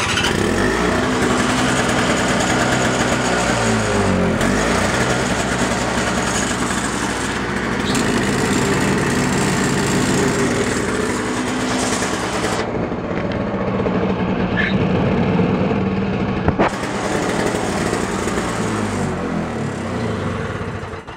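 Toro Power Clear R-Tech snowblower's 141cc Briggs & Stratton two-stroke engine catching at once and running. Its speed dips and recovers a couple of times before it is shut off at the end. The quick start shows the repaired starter drive working.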